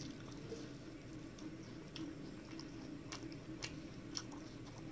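Eating sounds: a mouthful of rice and fried fish being chewed, with a few sharp wet clicks, over a low steady hum.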